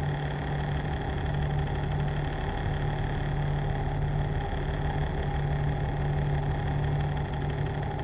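A steady, low droning hum with one constant tone, unchanging throughout.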